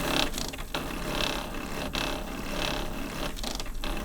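Stalling-machine sound effect, like a broken printer, standing in for a robot cat sputtering out and breaking down: a rhythmic mechanical grinding, about three pulses every two seconds, over a low electrical hum.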